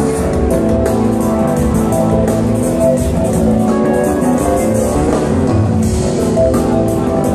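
Live rock band music played loud, with drums keeping a steady beat under guitar and keyboards.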